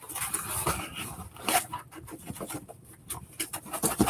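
Irregular rustling and soft crackling clicks of books and their packaging being handled and unwrapped, busier near the end.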